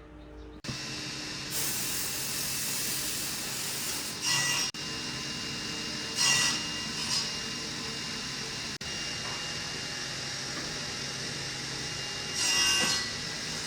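An electric woodworking power tool switches on about half a second in and runs steadily with a constant whine. A few short, louder bursts come as it works the wood.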